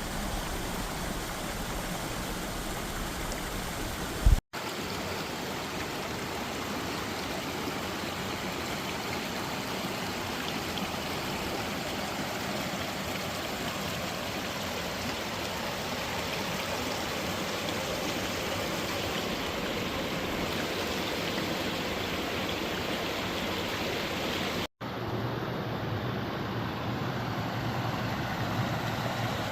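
Stream water rushing and babbling in a steady wash. It drops out for an instant twice, and a low hum joins in the last few seconds.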